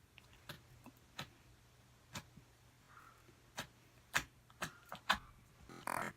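Slime ASMR: a string of sharp, irregular clicks and pops from slime being handled, with a short crackling burst near the end.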